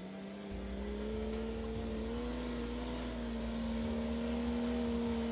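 Off-road 4x4 vehicle's engine running at steady revs under load with a low rumble, its pitch rising slightly about two seconds in.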